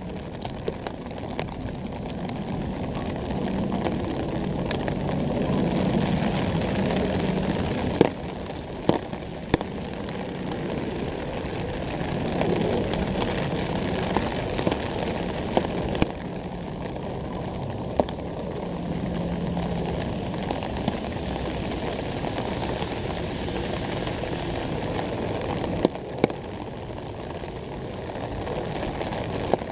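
Outdoor ambience of a steady distant rumble, swelling a little a few seconds in and again near the middle, with scattered sharp ticks.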